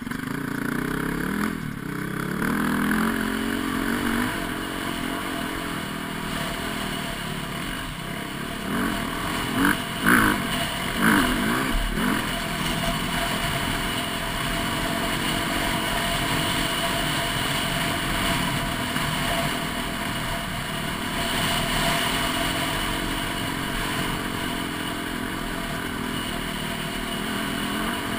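Dirt bike engine running on a rough trail, its pitch rising and falling as the throttle opens and closes, with a few sharp knocks about ten seconds in.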